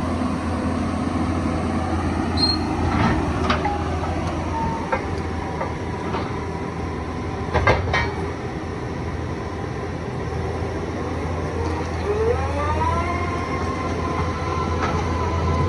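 Doosan DX170W wheeled excavator running: a steady engine hum with a few sharp metallic clanks, about three and eight seconds in, and a whine that rises near the end and then holds.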